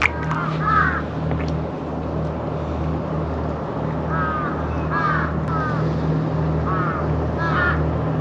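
Birds calling in short harsh cries, several in quick groups about once a second, over a steady low engine hum.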